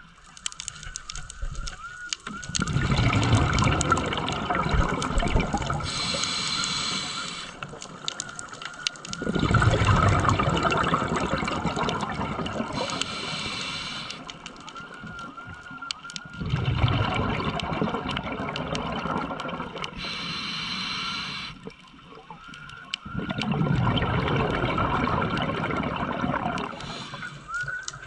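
Scuba diver breathing through a regulator: four long exhalations of bubbles rushing out, each followed by a short hissing inhalation, about one breath every seven seconds.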